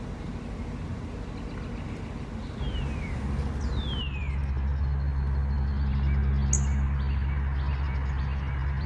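A steady low engine hum, like a motor vehicle running, sets in about two and a half seconds in and grows louder. Over it, two short bird calls slide downward in pitch about three seconds in.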